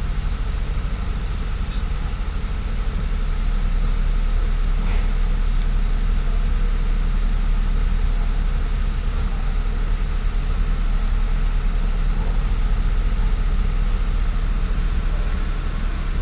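Mercedes-Benz SLK 350 (R171) V6 engine idling steadily.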